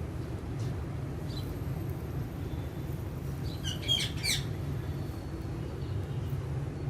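A parrot gives a short burst of sharp, high squawks about four seconds in, with a few faint chirps before it, over a steady low rumble.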